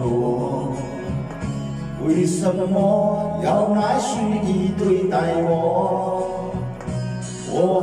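A man singing a slow Mandarin love song into a handheld microphone over a recorded music backing track.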